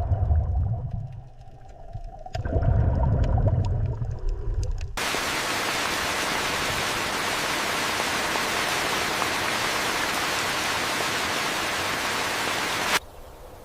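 Steady, even hiss like static that starts suddenly about five seconds in and cuts off just as suddenly near the end; before it, a few seconds of low rumbling sounds.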